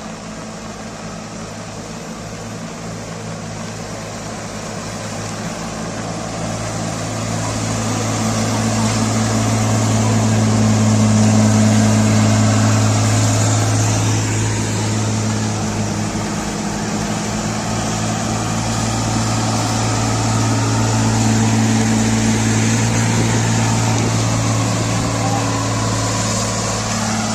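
Engine of a railway track-laying machine running with a steady low drone, growing louder toward the middle, easing off, then swelling again.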